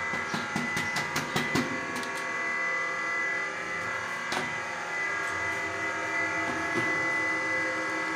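Duplex soap plodder's 2 HP single-phase electric motor running steadily with a whine while it extrudes a soap bar. A few sharp clicks come in the first two seconds and one more about four seconds in.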